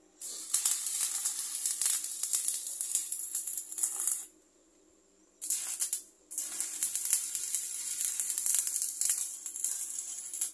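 Electric arc welding on steel rod: the crackle of the arc in three runs, a long one of about four seconds, a short one a little past the middle, and another from about six seconds on.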